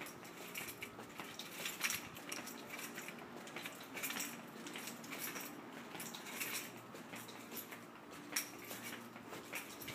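Faint, irregular light clicks and clinks from walking on a concrete walkway while holding a phone: footsteps and handling noise.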